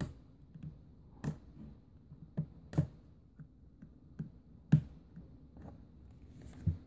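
Fingers handling a plastic tablet, with about half a dozen scattered sharp clicks and taps against its casing; the loudest comes about two-thirds of the way through.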